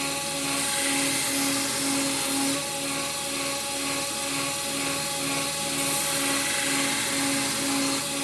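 Belt grinder running steadily while a knife handle is profiled, with a regular pulse about twice a second.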